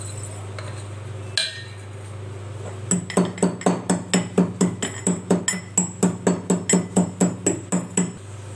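Steel pestle pounding black peppercorns and cumin seeds in a small stainless steel mortar: sharp metallic strikes at about four a second, starting about three seconds in. A brief sound of the seeds being tipped from a steel plate into the mortar comes first.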